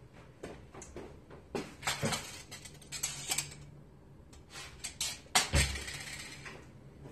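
Metal clinks and knocks from hand work on a Porsche 944 torque tube's driveshaft and bellhousing end, irregular, with the loudest knock and a dull thump about five and a half seconds in.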